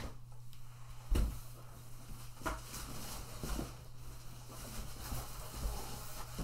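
Handling noise as items are moved and set down: one solid thump about a second in, then a few lighter knocks and rustles, over a steady low hum.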